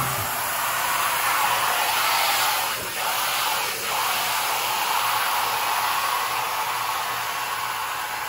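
Water spraying from a garden hose nozzle onto the floor of an empty inflatable hot tub as it fills: a steady hiss, with two brief dips about three and four seconds in.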